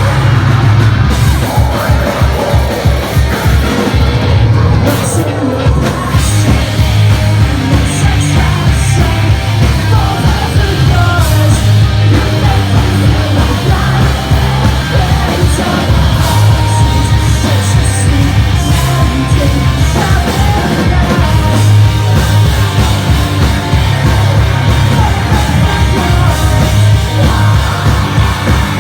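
Post-hardcore band playing live at full volume: heavy rock instruments over a rapid, driving kick drum, with screamed vocals.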